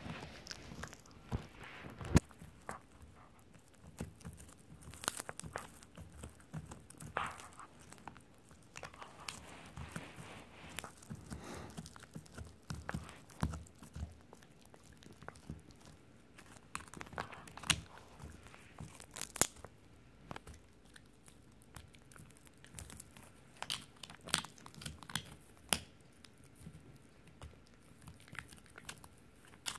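Italian Greyhound chewing a rawhide Dingo bone up close: irregular crunches, crackles and tearing as its teeth work the rawhide, with one sharp crack about two seconds in.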